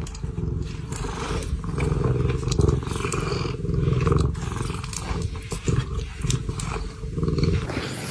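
A cat's low, continuous rumble that swells and eases in long pulses, as if with each breath.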